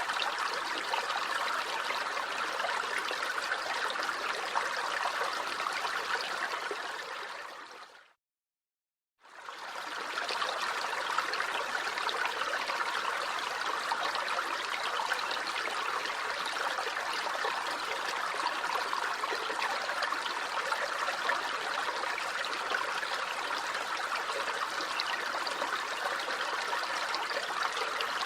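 Stream water flowing and babbling steadily. It fades out to silence about eight seconds in and fades back in about a second later.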